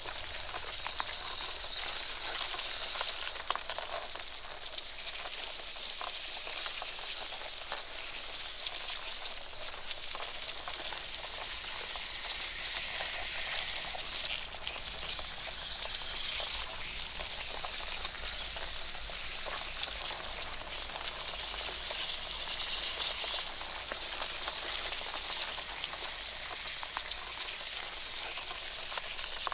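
Sound effect of a swarm of spiders skittering: a dense, crackling hiss of countless tiny clicks that swells and fades in waves every few seconds.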